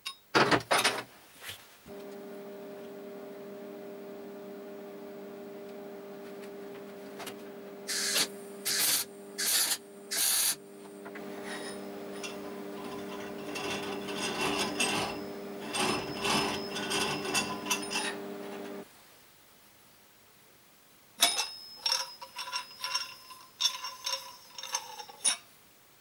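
Metal parts of a DIY propane burner being handled and fitted: sharp clicks and clinks of a steel bolt, nut and washer against an iron pipe reducer and bracket. A steady hum with several pitches runs under it for most of the time and cuts off suddenly about three-quarters through, followed by a quick run of ringing metallic clinks.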